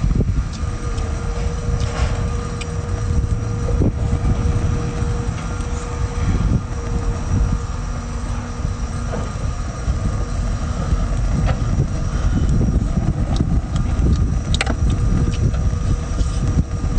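Steady low rumble of outdoor background noise, with a faint hum above it and a few small clicks and taps scattered through.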